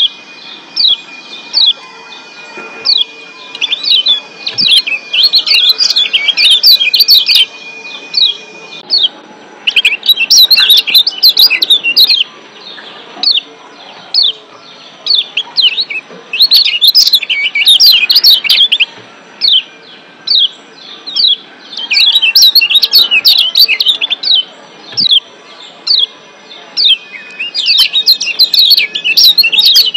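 Yellow white-eye (kecial kuning, a Zosterops white-eye from Lombok) giving rapid bursts of sharp, falling 'ciak' chirps, the bursts lasting one to three seconds with short pauses between them. A thin steady high tone runs under the first few bursts and returns near the end.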